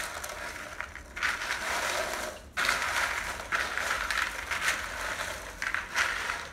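Oil-coated mini pretzel twists clattering and scraping against a plastic mixing bowl as a spatula stirs them, in repeated strokes with short pauses between.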